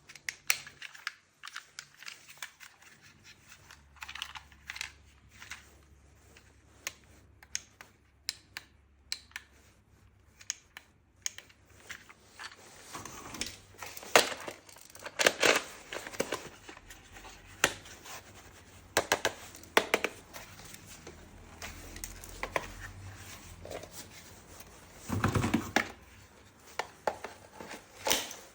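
Hands unpacking and handling a plastic toy gun set: scattered irregular clicks and knocks of hard plastic parts, with crinkling and tearing of packaging, a longer rustle near the end.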